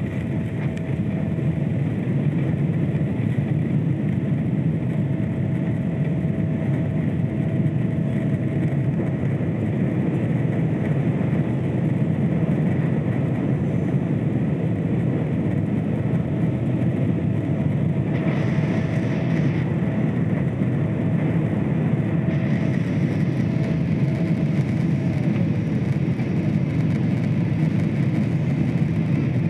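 Boeing 777-300ER's GE90 engines running at takeoff thrust during the initial climb, heard inside the cabin over the wing: a steady low rumble with a faint steady whine. A brief rise of higher hiss comes about two-thirds of the way in.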